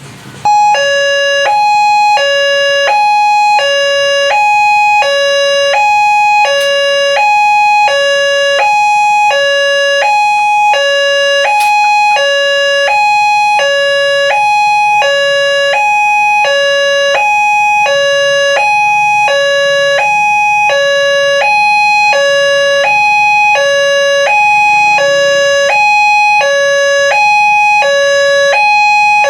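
Indonesian railway level-crossing warning alarm: an electronic two-tone signal alternating high and low, about one high-low cycle a second, cutting in abruptly just after the start.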